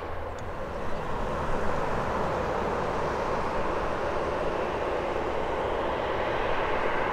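CFM56 jet engines of a WestJet Boeing 737-700 running at taxi power: a steady rushing hum that swells a little about a second in and then holds.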